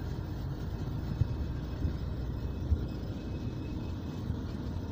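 Asphalt mixing plant's cold-feed bins and belt conveyor running, with gravel pouring onto the belt: a steady low machinery rumble with a few short knocks.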